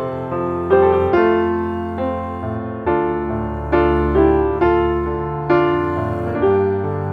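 Background piano music: gentle chords struck about every half second, each ringing and fading.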